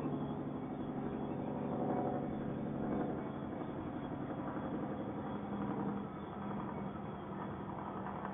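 Heavy diesel engines running with a steady, deep drone made of several held engine tones.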